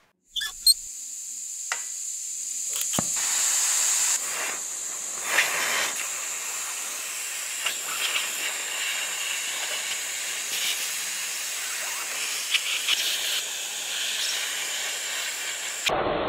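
A gas torch's flame hissing steadily with a thin high whistle, with scattered crackles and pops as it plays over the metal housing of an LED light bar. A single sharp knock comes near the start.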